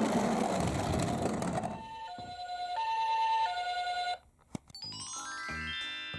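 Ambulance two-tone siren in the Japanese hi-lo style, alternating a high and a low note twice and then cutting off. It follows a loud rushing, rattling noise in the first two seconds. A rising musical sweep comes in near the end.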